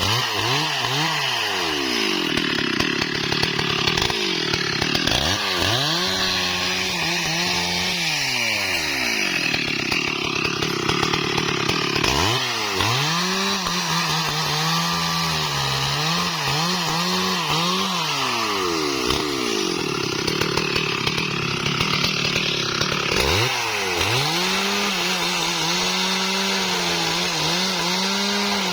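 STIHL MS 382 two-stroke chainsaw running at high revs. Its engine note drops and climbs back four times: near the start, about 5 seconds in, about 12 seconds in and about 23 seconds in.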